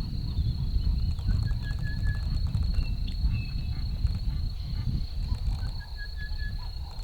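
Bush ambience: a steady high-pitched insect drone, with a bird's short trilling call repeating about three times, over a low rumble.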